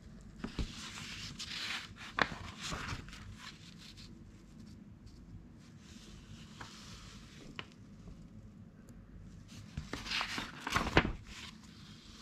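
Pages of a 1964 paper magazine turned by hand: two crinkling, rustling page turns with sharp paper crackles, one starting about half a second in and a louder one about ten seconds in.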